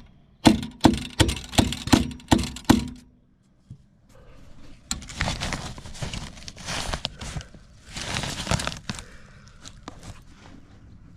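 Seven sharp knocks in quick succession, about three a second, then after a short pause several seconds of crinkling, rustling noise.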